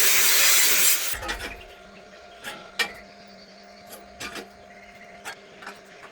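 A loud, harsh metalworking noise on steel angle iron cuts off about a second in. Several light metallic clicks and knocks follow as the steel pieces are handled.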